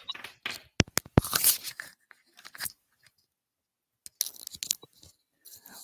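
Handling noise on a video-call microphone as wired earbuds with an inline mic are fitted: scratchy rustling with a few sharp clicks, broken by about a second of dead silence in the middle.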